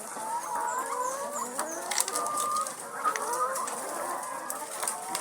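A flock of laying hens clucking and calling over one another, with a few sharp clicks and knocks.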